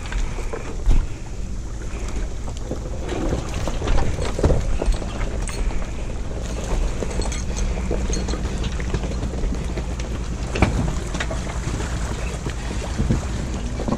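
Truck engine running steadily, with wind buffeting the microphone and scattered knocks from handling.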